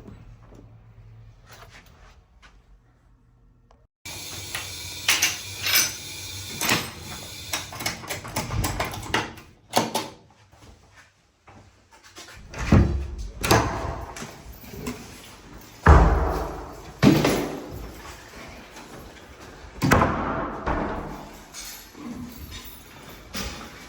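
A run of doors opening and shutting: sharp latch clicks and clanks and several heavy slams, the loudest about two thirds of the way through.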